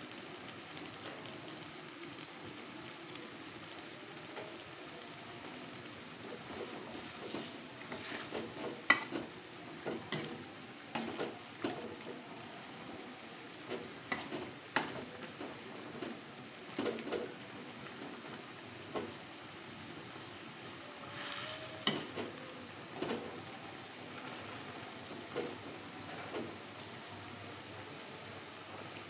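Bok choy simmering in sauce in an aluminium wok, with a steady sizzle. From about seven seconds in, a metal ladle stirs and clinks repeatedly against the wok's sides.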